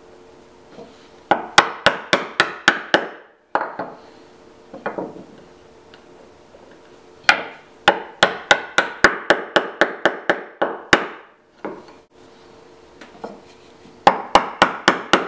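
Mortise chisel being struck with quick, repeated mallet blows, chopping along knife-marked lines to deepen a butterfly-key mortise in wood. The blows come in three runs of sharp taps, about four a second, with short pauses between the runs.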